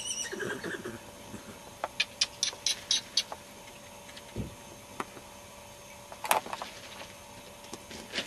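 Miniature horse foal's hooves on turf: a quick run of sharp hoofbeats about two seconds in, and a single louder one later. A short high call sounds at the very start.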